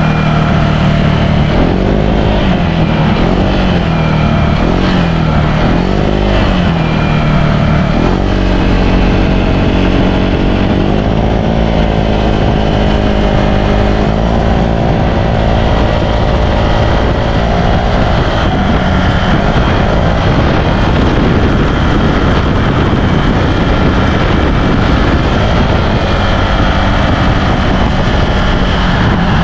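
Honda Click scooter's single-cylinder engine through a Sun Racing Silent Killer aftermarket exhaust, revved up and down three times, then pulling to higher revs and holding them. In the second half a loud, even rushing noise takes over from the engine note.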